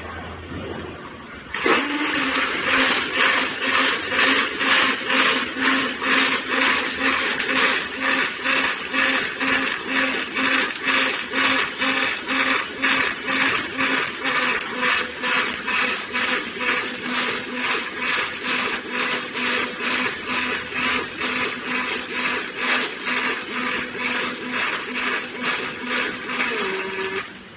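Automatic welding machine welding aluminium scaffold tube: a loud steady hiss and buzz with a low hum, pulsing evenly about two to three times a second. It starts about a second and a half in and cuts off near the end.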